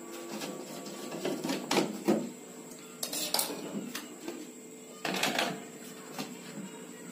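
Metal clinks and scrapes of a screwdriver on the screws of a tabletop wet grinder's cover panel, and the panel rattling as it is worked loose and lifted. The clatter comes in three bunches, about a second and a half in, around three seconds, and around five seconds, over a steady faint hum.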